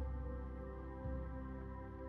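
Soft ambient background music of sustained, held notes, with a low note sounding again about a second in.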